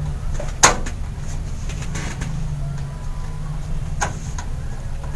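Steady low hum with a few sharp clicks, the loudest just over half a second in and another near the end: screws and screwdriver knocking against the metal case as the motherboard is screwed in.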